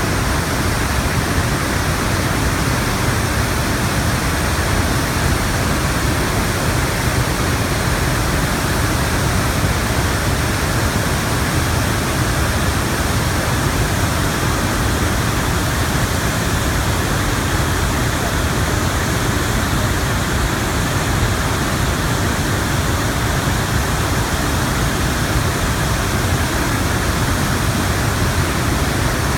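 Iguaçu Falls: a massive waterfall, loud and steady, a continuous rush of water pouring over the cliffs into the gorge.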